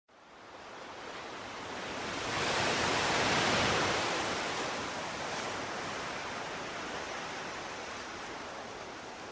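A smooth rushing noise that fades in, swells to its loudest about three to four seconds in, then slowly dies away.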